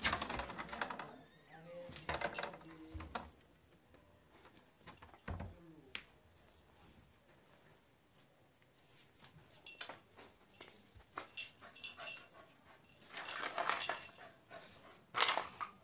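Labrador puppy scratching and scrabbling at a wooden door in irregular bursts, trying to get it open.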